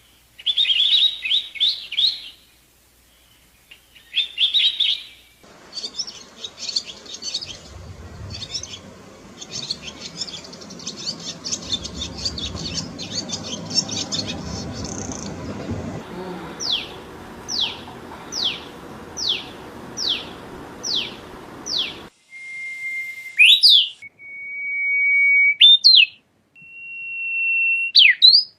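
Songbirds singing, several recordings cut together: short bursts of chirps, then rapid chattering over a background hiss, then a run of about a dozen evenly spaced short descending whistles, and finally long steady whistled notes broken by quick up-and-down sweeps.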